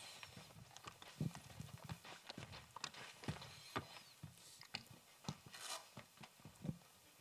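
Faint footsteps with scattered small knocks, a few a second at uneven spacing.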